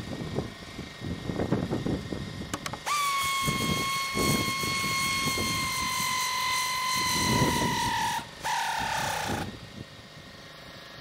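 A handheld power drill starts abruptly and runs under load for about five seconds, its whine slowly dropping in pitch. It stops briefly, then runs once more for about a second and winds down. Wind rumbles on the microphone throughout.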